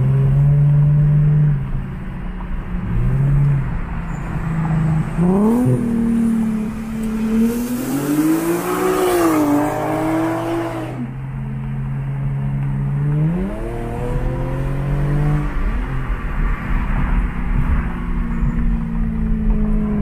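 Infiniti G37's 3.7-litre V6 on ISR test pipes and a custom single-exit exhaust, heard from a car alongside, its note rising in pitch several times as it accelerates and dropping back between pulls. A rushing noise comes in for a few seconds midway.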